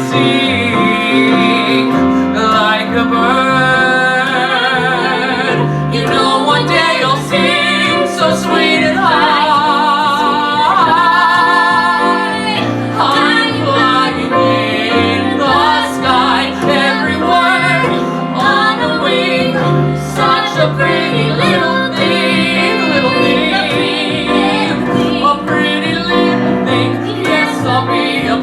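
Female voice singing a sustained melodic line with wide vibrato over instrumental accompaniment.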